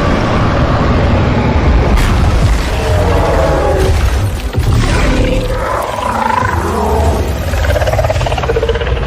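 Dramatic film score with heavy low booms. A creature-like roar rises in the second half.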